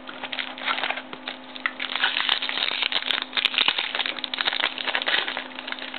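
Trading card pack wrapper being torn open and crinkled by hand: dense, irregular crackling that starts just after the beginning and dies down near the end.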